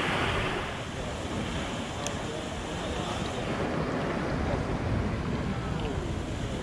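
Steady rush of water from a small pool waterfall splashing into the pool, with wind buffeting the microphone.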